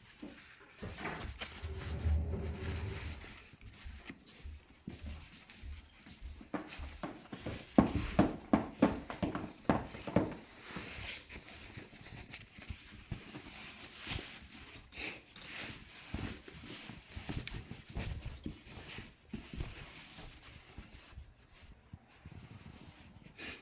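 Cats scrambling about in a box and basket: irregular rubbing, scratching and clicking of claws, busiest for a few seconds around the middle.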